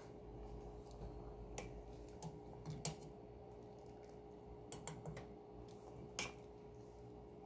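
Faint, sparse clicks and ticks over a steady low hum from a pot of figs simmering in piloncillo syrup. The sharpest click comes about six seconds in, as metal tongs knock against the pot.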